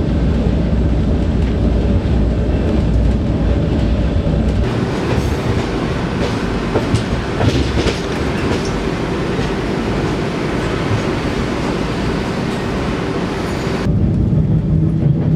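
Passenger train running, heard from inside the carriage: a steady low rumble with clickety-clack of the wheels on the rails. Through the middle stretch the noise turns brighter with sharper clatter and clicks, then settles back to mostly low rumble near the end.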